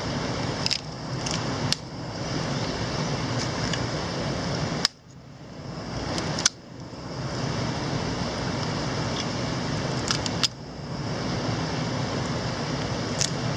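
Steady rush of a mountain stream, broken by a handful of sharp clicks and clinks, a few of them followed by a brief dip in the background.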